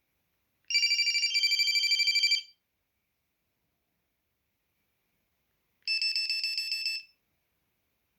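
Samsung SGH-2200 mobile phone's ringer beeper playing two short ringtone melody previews, each a rapid pulsing electronic trill. The first lasts about two seconds and shifts in pitch partway through. The second comes a few seconds later and lasts about a second.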